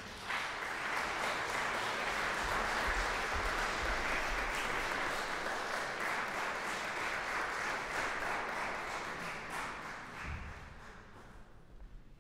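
Audience applauding in a concert hall, steady for most of the time and dying away over the last two seconds.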